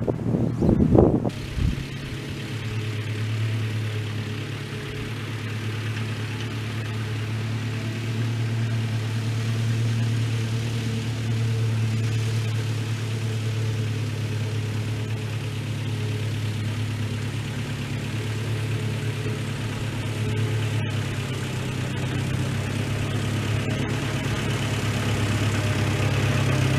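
A vehicle engine running at a steady, even speed, with a brief gusty rumble in the first second or so.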